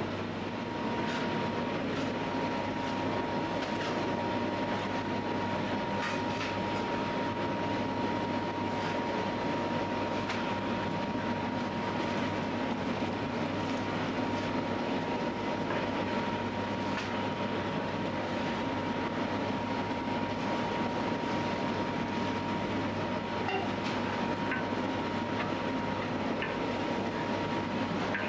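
Bakery dough-kneading machine running steadily as its hook arm turns barley flour and water into dough: a continuous mechanical hum with a thin steady whine that comes in about a second in.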